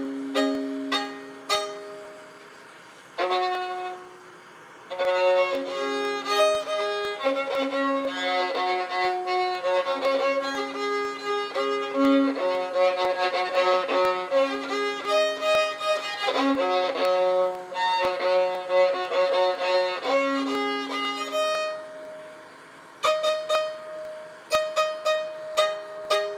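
Improvised jazz instrumental music: single notes and short phrases with sharp attacks, some held. It thins out a few seconds in and again towards the end.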